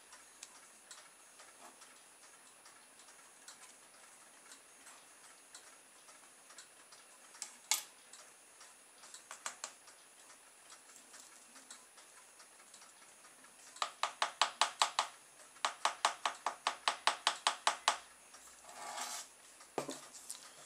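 Small plastic ball-pen tube being handled while it is packed with baking powder and closed: a few light clicks, then two quick runs of clicks at about eight a second lasting a second or two each, over a faint regular ticking.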